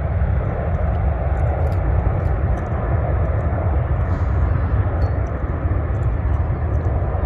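Jet airliner climbing out after takeoff: a steady, deep engine rumble that holds an even level throughout.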